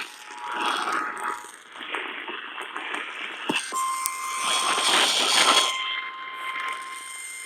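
Emergency Alert System tones: a two-tone attention signal dies away in the first second and a half, then about four seconds in a single steady alert tone starts and holds, over patches of hissing noise.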